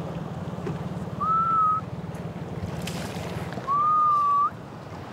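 Ama diver's breath whistle (isobue) on surfacing: two long whistles, about a second in and near four seconds in, the second longer, each holding one pitch and flicking up at the end. The diver exhales in a long whistle to take in more air after the dive. Underneath, a low motor hum fades out about three and a half seconds in.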